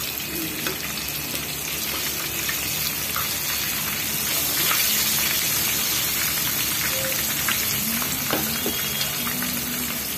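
Battered chicken pieces deep-frying in hot oil in a wok: a steady crackling sizzle that grows a little louder about four seconds in, with a few light taps of metal tongs turning the pieces.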